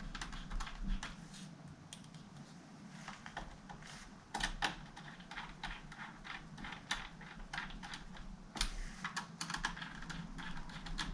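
Irregular clicking of keys on a Dell Latitude CPi laptop keyboard, like typing, many quick clicks at an uneven pace.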